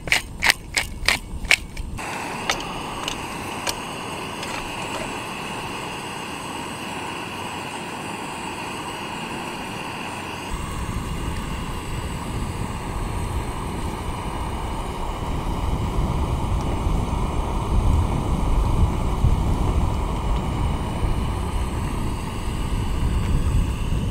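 Whitebait fritter sizzling in butter in a frying pan over a gas cartridge stove, a steady hiss, with a quick run of sharp clicks in the first two seconds. From about ten seconds in, wind rumbles on the microphone.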